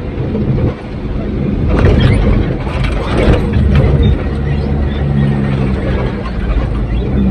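Heavy engine running steadily, with metal rattling and clanking over it, thickest in the first half.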